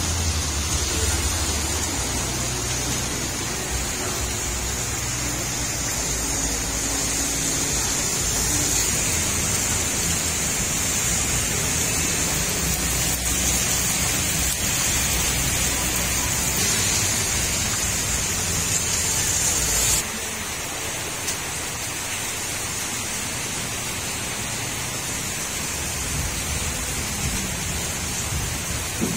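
Heavy rain falling on wet pavement and a road, a steady hiss. About two-thirds of the way through it turns abruptly a little quieter.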